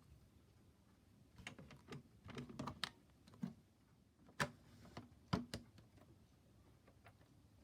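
Toy washing machine being handled: a scattering of light plastic clicks and knocks over about four seconds, the two sharpest about four and a half and five and a half seconds in.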